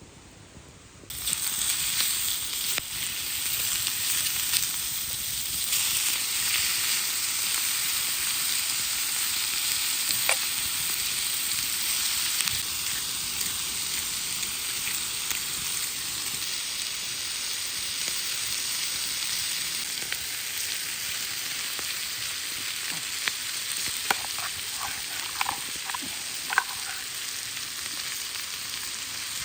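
Food sizzling on a hot iron plate (TAKIBISM Frying Pan Dish), a dense steady hiss that starts suddenly about a second in, with a few sharp pops near the end.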